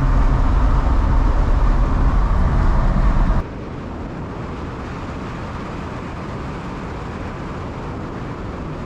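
Steady engine and road noise from a 1982 Chevrolet C10 pickup cruising on the highway, fitted with new mufflers. The rumble drops abruptly to a lower, even level about three and a half seconds in.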